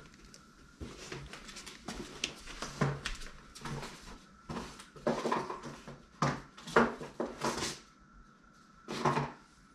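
A reel box and its packaging being shifted and handled: an irregular run of scrapes, rustles and knocks, busiest and loudest between about five and eight seconds in, with another brief clatter near the end.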